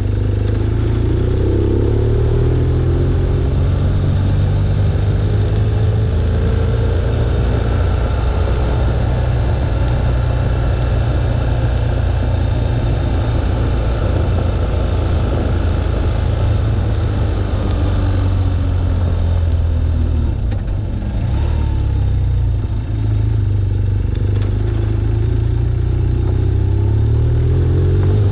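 BMW R1200GS flat-twin boxer engine running under way, with wind rushing past the windshield-mounted microphone. The revs rise near the start and again near the end, and drop off briefly a little after two-thirds of the way through.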